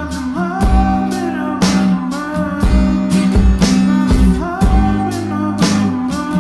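Background music: a guitar-led song with a steady beat and a bending melody line that may be singing.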